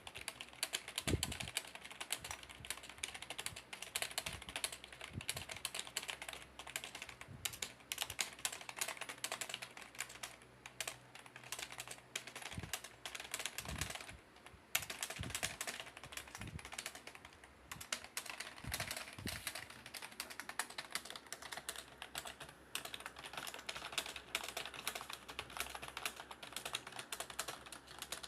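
Very fast, continuous typing on a computer keyboard during a typing test at about 140 words per minute: a dense stream of key clicks, with a brief pause about fourteen seconds in.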